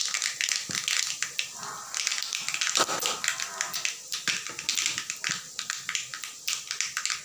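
Panch phoron seeds and dried red chilli pieces spluttering in hot mustard oil in a kadhai: a dense, irregular crackle of sharp pops, the sign that the oil is hot enough for the spices to crackle open.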